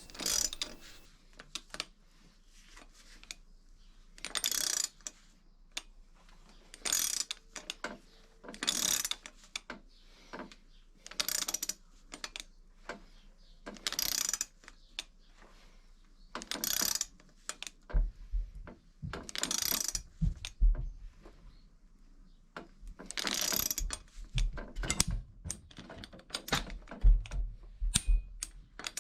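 Short bursts of ratcheting clicks, each about half a second long, repeating every two to three seconds, with scattered low knocks from just over halfway through.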